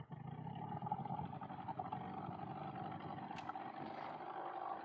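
Motorboat engine running steadily under way, an even drone with no change in speed.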